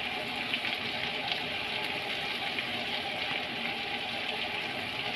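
Minced garlic frying in butter and oil in a pan: a steady sizzle with a couple of small pops in the first second or so.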